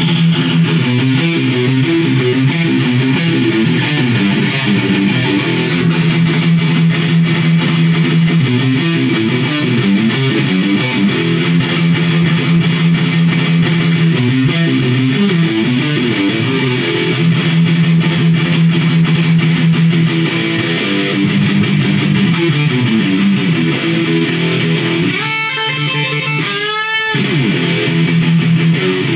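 Electric guitar played through a small amplifier: improvised rock riffs with sustained notes and chords. Near the end, a high note wavers and bends strongly up and down in pitch.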